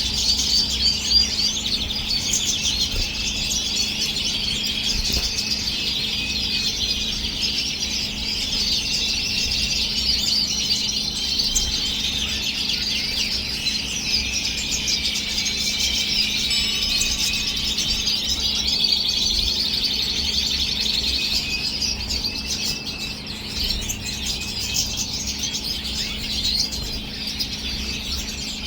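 Caged European goldfinches and red siskins singing: a continuous, dense twittering song of quick trills and chirps, with a steady low hum underneath.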